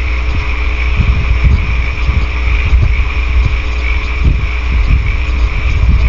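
Steady electrical hum and hiss from a nest-box camera's microphone, with scattered soft low thuds.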